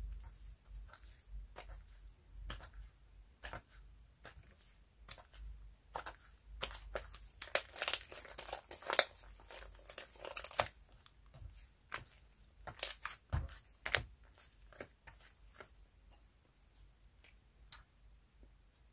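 White slime being stretched, folded and squeezed by hand: sticky crackles and pops, densest and loudest in the middle, thinning to scattered soft clicks near the end.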